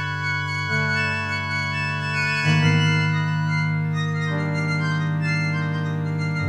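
Music: sustained organ-like keyboard chords over a low held bass, the chord changing three times.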